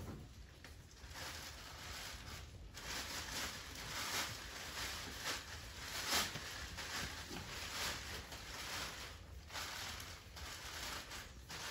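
Large plastic tarp rustling and crinkling in irregular swells as it is rubbed over an unbroken mule's head and neck, to get the mule used to the noise.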